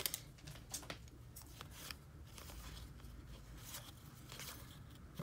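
Faint rustling and light clicks of trading cards and pack wrapper being handled up close.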